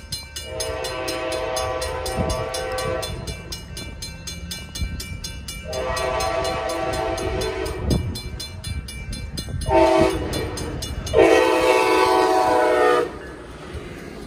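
Amtrak Pacific Surfliner train horn sounding the grade-crossing signal: two long blasts, a short one and a final long one, the last the loudest. Beneath it a railroad crossing bell rings steadily, and the train's rumble comes in near the end as it reaches the crossing.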